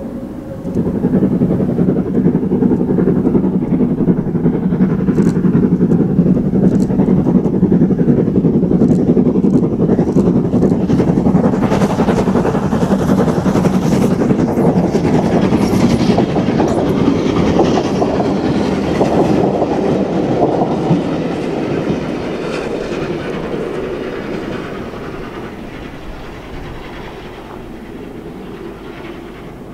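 A steam locomotive hauling a train of coaches runs past. It gets loud about a second in, and the wheels click over rail joints as the coaches go by. The sound then fades steadily as the train draws away.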